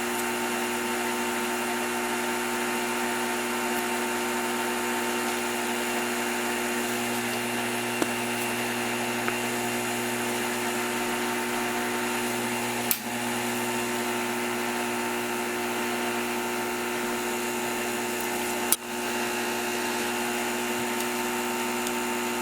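Small electric motor running steadily with a constant whine, with a couple of sharp clicks in the second half.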